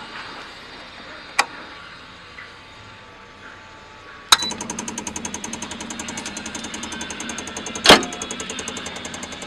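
An engine starts with a sudden catch a little over four seconds in, then runs with a rapid, even pulse. Single sharp clicks come about a second and a half in and again about a second and a half before the end.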